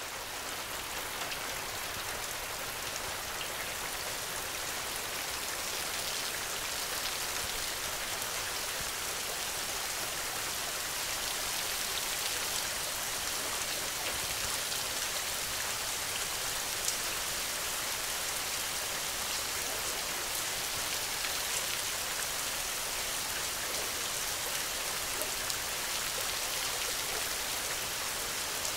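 Steady rain: a dense, even hiss of many drops, with a few single louder drop ticks standing out. It swells up over the first couple of seconds and then holds steady.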